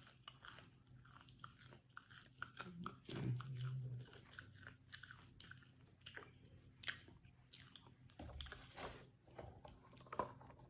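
Close-up chewing and crunching of popcorn: irregular small crisp crunches.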